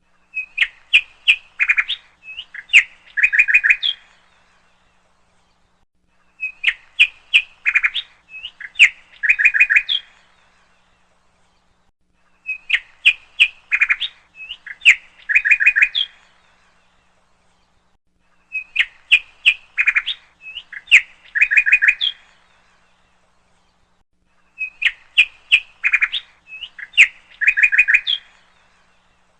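A bird chirping in a four-second phrase of quick, high chirps and short trills, then about two seconds of silence. The same phrase repeats note for note every six seconds, like a looped recording.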